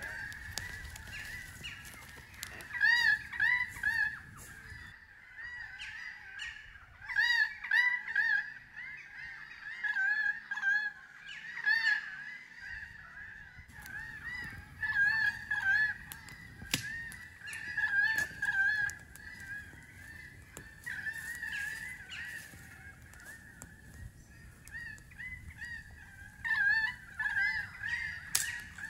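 Birds calling in a continual chorus of short, repeated calls, coming in clusters every second or two, with a few sharp snaps here and there.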